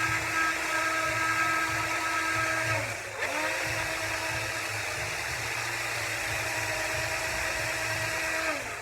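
Cordless drill/screwdriver motor whining at steady speed as it spins a fan part against fine sandpaper for polishing, with a sanding hiss. It stops about three seconds in, spins straight back up, and winds down near the end.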